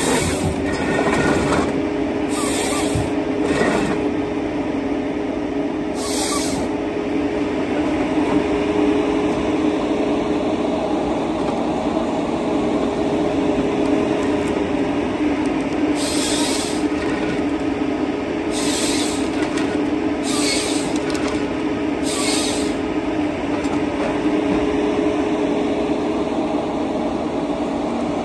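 John Deere 953MH harvester running steadily while its Waratah 622B head processes a tree stem, the engine and hydraulics making a steady drone. Short, high-pitched noises from the head's work come and go about eight times.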